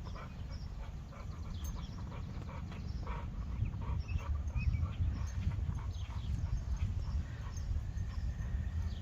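Bulldog sniffing and snuffling in short, irregular bursts over a steady low rumble.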